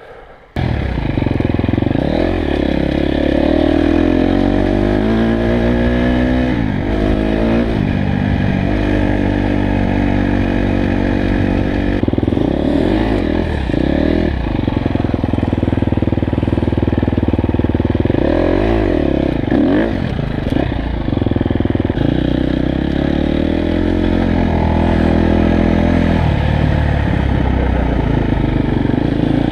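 Dirt bike engine heard up close from the rider's own bike, running continuously with the revs rising and falling again and again as it is ridden. It comes in abruptly about half a second in.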